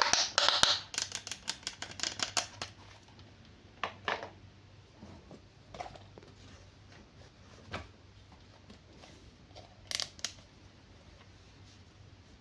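Toy packaging being opened, apparently cut with scissors: a quick run of crisp clicks and crinkles over the first few seconds, then a few scattered single clicks.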